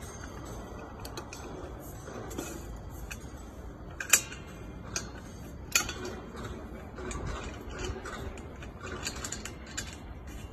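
Scattered metal clicks and clinks as a steel band clamp is fitted and screwed tight around the neck of a dumpling machine's stainless steel hopper, the sharpest click about four seconds in.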